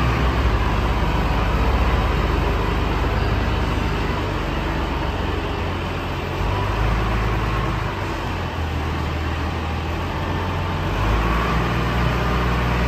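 Tractor diesel engine running under load while the front loader lifts and stacks large square hay bales. The engine note dips slightly in the middle and rises again near the end.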